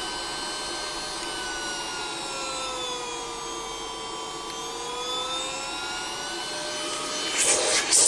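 ZISIZ cordless stick vacuum's motor running, a steady whine whose pitch sags a little in the middle and comes back up. Near the end a louder scraping, rubbing noise joins as the nozzle is worked against a rug.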